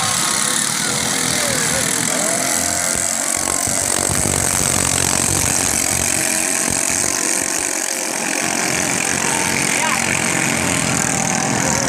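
Ketinting longtail boat engines running steadily, with voices in the background.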